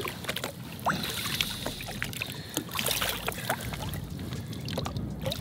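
Water lapping and splashing at the side of a boat, with many small scattered splashes and knocks, as a zander is held in the water by hand and let go.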